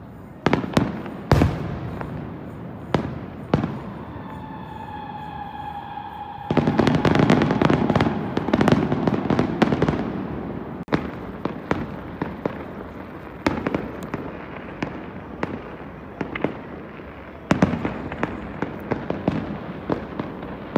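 Aerial fireworks bursting in sharp bangs at irregular intervals. About four seconds in, a steady whistle sounds for around two seconds. It gives way to a dense barrage of rapid bangs and crackle, and another quick run of bangs comes near the end.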